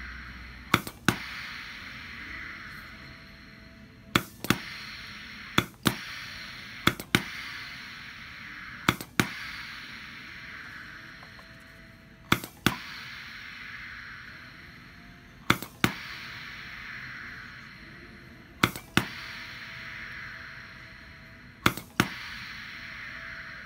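Hibar 4F2C pneumatic piston filling machine cycling on its foot pedal, each stroke a quick pair of sharp clacks, nine shots in all at uneven spacing, over a steady hiss. Each cycle is one tiny dose of about half a gram of water.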